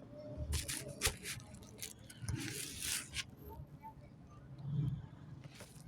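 Packaging being handled and opened: intermittent rustling and scraping, with a few light knocks and one longer rustle about halfway through.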